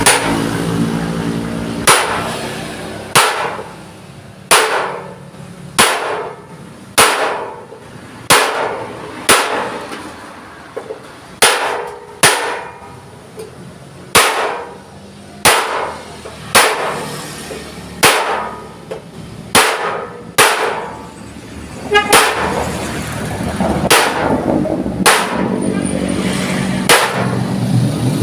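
Hammer striking a thick steel sheet over and over, about one blow a second, each blow ringing briefly.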